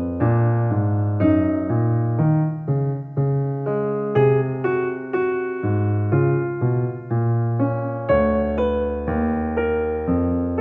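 Instrumental background music: a melody of struck keyboard notes, a few per second, each starting sharply and fading away.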